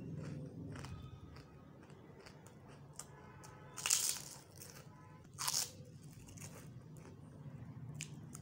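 Crisp prawn crackers being bitten and chewed, with two loud crunches about four and five and a half seconds in and smaller crackles between.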